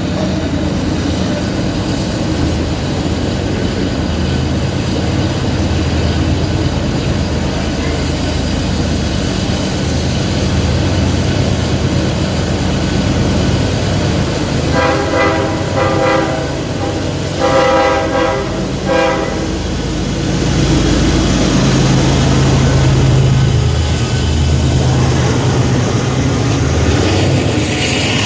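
CSX diesel freight locomotive running with a steady low rumble; about halfway through, its multi-note air horn sounds a few short blasts and then a longer one. The rumble grows a little louder afterwards.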